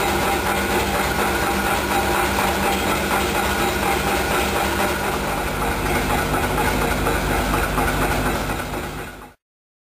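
Workshop machinery running steadily with a fast, even clatter, fading out near the end.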